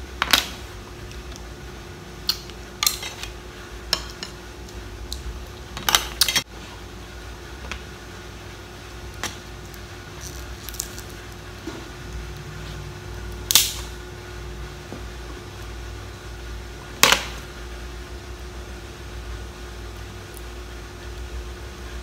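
Scattered sharp cracks and clicks of a hard mud crab claw shell being bitten and worked at, a few strokes several seconds apart with a close cluster about six seconds in. A faint steady hum lies underneath.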